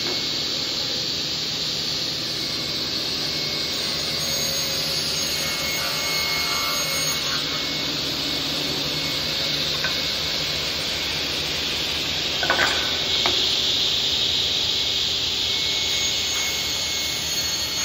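SCM L'Invincible SI15F sliding-table saw running steadily and cutting short pieces of wood, with two sharp knocks about twelve and a half seconds in.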